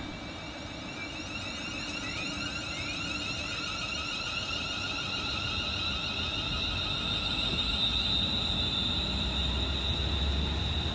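Siemens Desiro Class 350 electric multiple unit pulling away, its traction motors giving a high, multi-toned whine, some tones climbing in pitch as it gathers speed. It grows steadily louder, with a low rumble coming in near the end.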